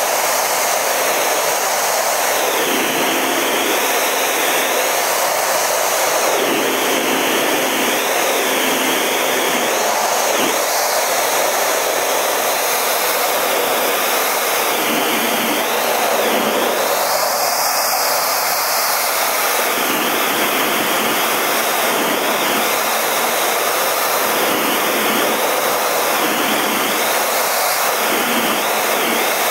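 Steady rushing noise of a CT-114 Tutor jet's turbojet engine and airflow, heard from inside the cockpit in flight.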